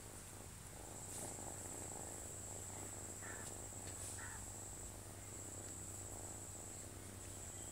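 Faint, steady, high-pitched insect trill, cricket-like, that drops out briefly a few times, over a low steady hum.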